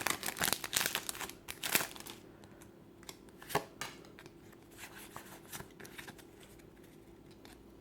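Pokémon card booster pack handled by hand: the foil wrapper crinkling and rustling, busiest in the first two seconds, then scattered soft clicks as the cards are slid out and handled.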